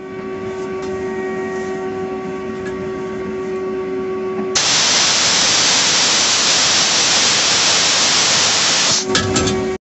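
A motor-driven tool starts and runs with a steady hum; about four and a half seconds in, a much louder harsh hiss covers it until about nine seconds in, then the hum returns briefly and the sound cuts off abruptly just before the end.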